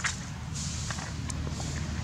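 Scattered light rustles and clicks over a steady low rumble, with the sharpest click right at the start.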